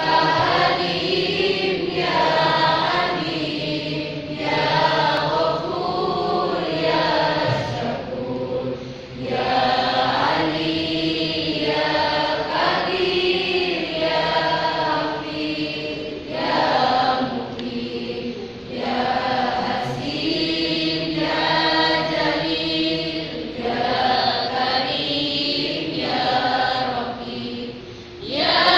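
A choir of many voices singing together in long phrases, with brief breaks between the lines.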